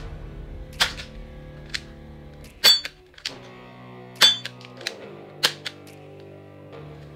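Sharp plastic clicks and snaps from a transparent toy revolver being handled, about eight in all. The two loudest come about a second and a half apart near the middle. Steady background music plays underneath.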